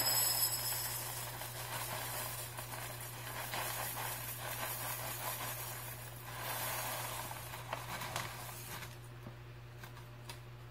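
A whole bag of Jolly Pong puffed wheat cereal being poured and shaken out of its plastic snack bag into a ceramic bowl: a steady rustling patter of the light puffs with the bag crinkling. It swells again about two-thirds of the way through as the bag is shaken, then dies away to a few light ticks near the end.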